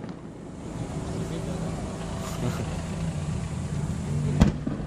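Crowd chatter over a steady low hum, then a single sharp firework bang near the end.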